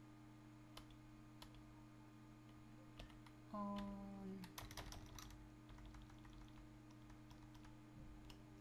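Faint computer keyboard typing, scattered keystrokes throughout, with a brief hum of a voice about three and a half seconds in.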